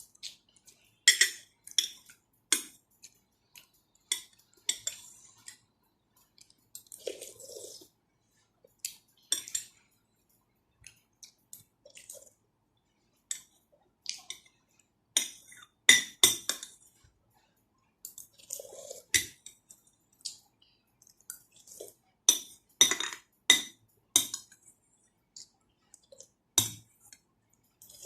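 Cutlery clinking and scraping against a bowl in quick, irregular taps, with a few softer eating sounds between them.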